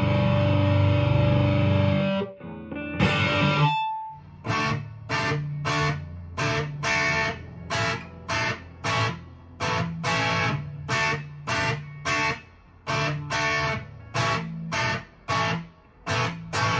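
Epiphone Les Paul Traditional PRO-III Plus electric guitar played through an amplifier. A held chord rings and is cut off about two seconds in. Then come short, choppy chord stabs, a little under two a second.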